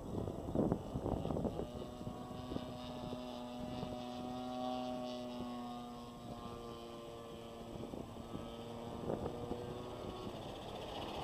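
Two-cylinder petrol engine of a radio-controlled P-51 Mustang model plane running steadily in flight overhead, a droning note that is strongest in the first half and grows fainter later. Short gusts of wind bump the microphone at the start and again near the end.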